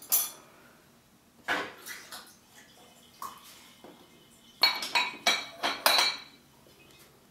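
Small metal clicks and scrapes of a disc-detainer pick tool working the discs of a padlock: a single click at the start, a few more about a second and a half in, then a quick run of sharper clicks about five seconds in.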